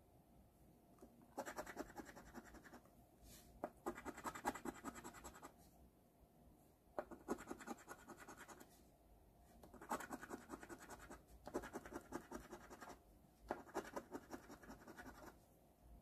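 Coating being scraped off a scratch-off lottery ticket: about six bursts of rapid scratching strokes, each a second or two long, with short pauses between.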